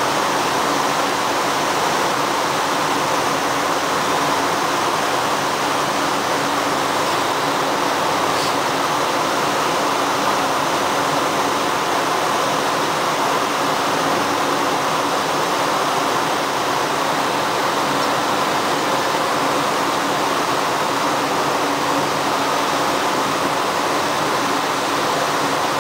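Water rushing steadily into a canal lock chamber as it floods to raise the ship, an even unbroken rush.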